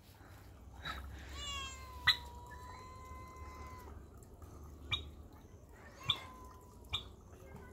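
Domestic cat meowing faintly: a long drawn-out call starting about a second and a half in and a shorter one about six seconds in, with a few short sharp sounds between them.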